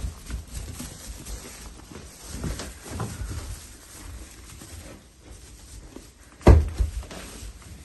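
Central Asian Shepherd (alabai) puppies moving about and scuffling, with scattered soft knocks and one loud thump about six and a half seconds in.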